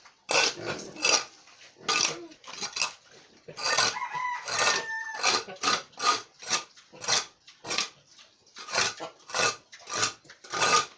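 Repeated scraping strokes of a metal tool working through a sand-and-cement mixture, about two a second and uneven. About four seconds in, a rooster crows once over the scraping.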